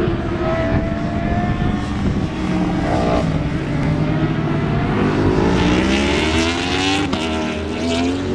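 Yamaha R1 superbike's crossplane inline-four engine accelerating hard, its pitch climbing, dropping with an upshift about seven seconds in, then climbing again.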